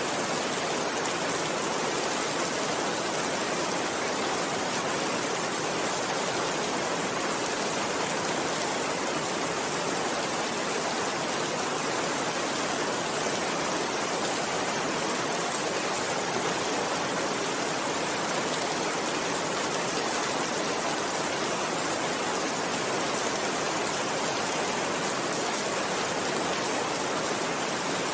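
Steady rainfall: an even, unchanging hiss of rain with no thunder or separate events.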